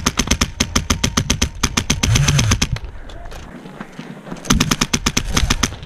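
Airsoft rifle firing on full auto: a long rapid burst of evenly spaced shots, a pause, then a second shorter burst about four and a half seconds in.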